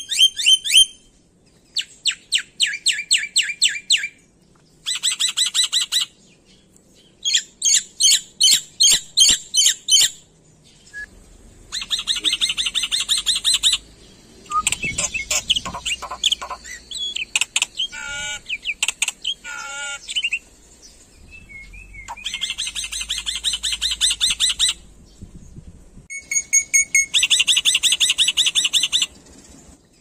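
Black-winged myna singing: repeated bursts of rapid, harsh chattering notes, each burst a second or two long with short pauses between, and a stretch of mixed calls with wavering whistles around the middle.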